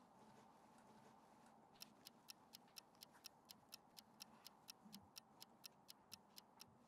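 Faint clock-ticking sound effect: quick, even ticks at about four a second, starting about two seconds in and stopping just before the end. It marks time passing while the patch is left to set.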